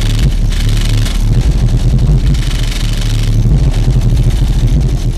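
Loud, deep bass from a Hummer H2's aftermarket car audio system, its subwoofers pounding steadily and heard from outside the closed vehicle.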